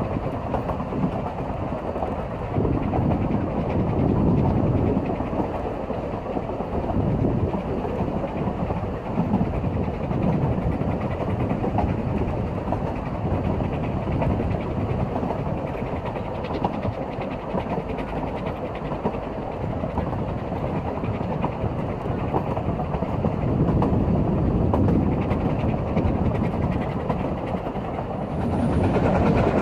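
Coaches of a steam-hauled narrow-gauge train running along the track, a steady rumble of wheels on rail with clickety-clack over the rail joints, heard through an open carriage window.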